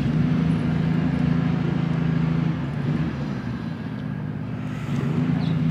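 A motor vehicle's engine running: a low, steady hum that eases off midway and swells again near the end.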